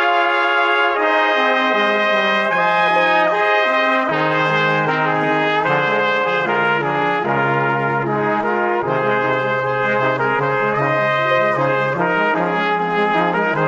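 Instrumental background music: a melody of held notes moving step by step over a lower line, at a steady level.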